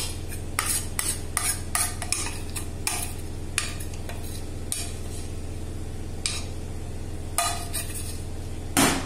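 Metal spoon scraping thick dhokla batter out of a stainless-steel bowl, clinking and scraping against the steel in a string of short irregular strokes, with a louder clank near the end. A steady low hum runs underneath.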